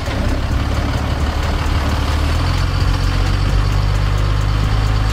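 Dodge 2500 pickup's engine running at low revs as the truck crawls slowly over boulders, its low note shifting slightly about halfway through.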